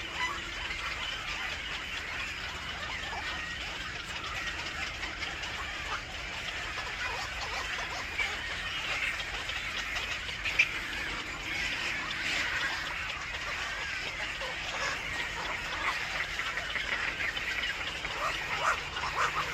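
Birds chirping continuously, many short high calls overlapping, with one sharp louder call about halfway through and a run of sharper calls near the end.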